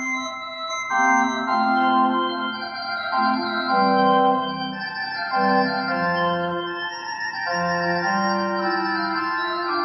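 Background music: slow, sustained keyboard-like chords, changing about once a second.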